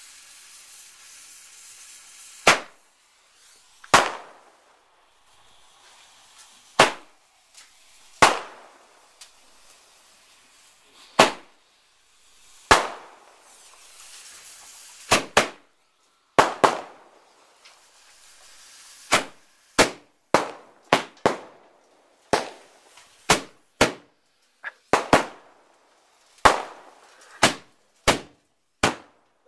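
A chain of fuse-linked 'white spider' fireworks going off one after another: about two dozen sharp bangs, each with a short fading tail. They come every second or two at first, then follow more closely, sometimes in quick pairs, from about halfway through.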